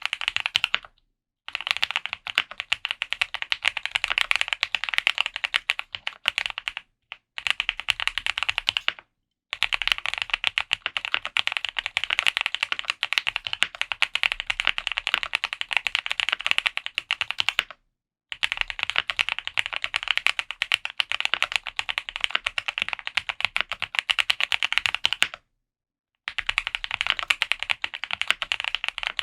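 Fast continuous typing on a QK75 custom mechanical keyboard with lubed Gateron Box Ink Black linear switches, a polycarbonate plate and GMK doubleshot ABS keycaps: dense runs of key clacks with brief pauses every several seconds.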